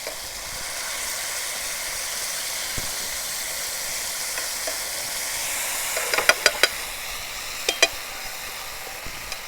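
Tomato sauce sizzling steadily in a hot pan as it reduces and thickens with corn flour. A utensil clinks against the pan in a quick cluster about six seconds in and twice more near eight seconds.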